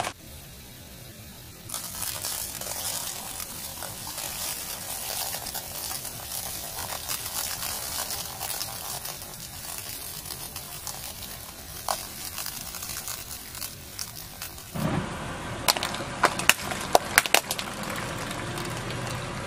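Car tyre rolling slowly over a pile of small potatoes on concrete, with a steady gritty crackling as they are squashed, starting about two seconds in. Near the end come several separate sharp cracks.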